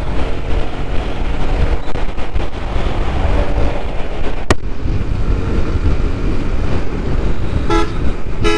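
Motorcycle riding at speed: wind rushing over the microphone over the engine's low running. A single sharp click about halfway through.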